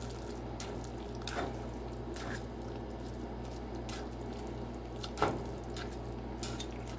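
Noodles in sauce being stirred with a plastic spoon in a saucepan, making faint wet squishing sounds, with a few light clicks of the spoon against the pan.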